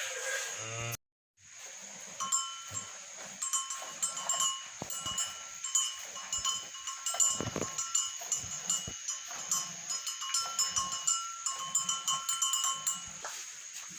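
Cow being milked by hand: jets of milk squirting into a pail in a quick, uneven rhythm of two or three squirts a second, with a ringing tone through it. A short dropout about a second in.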